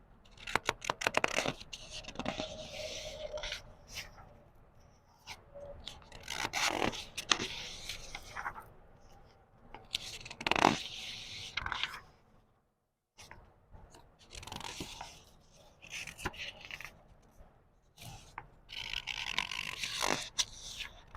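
Book pages turned slowly one after another: several crisp rustling, scraping paper sweeps, each a few seconds apart with quieter pauses between.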